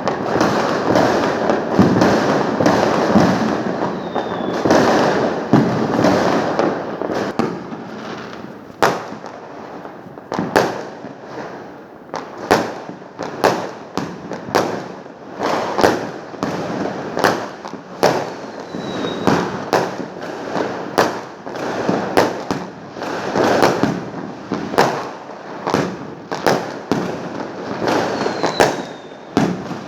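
Fireworks going off: a dense barrage of overlapping bangs and crackle for the first several seconds, then separate bangs at about one or two a second.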